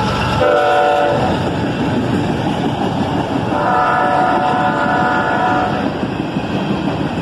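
Freight locomotive horn, the lead GE ES44AH's: a short blast about half a second in, then a longer blast of about two seconds, over the steady rumble of the approaching freight train.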